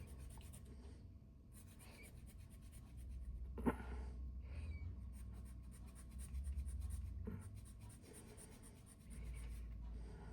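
Small hand file scraping in quick strokes on a plastic signpost base, taking it down for a tighter fit. A sharp click sounds a little under four seconds in.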